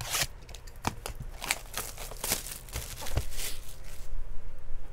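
A cardboard Topps Chrome trading card box and its contents being handled by hand: a string of short rustles and light clicks, quieter near the end.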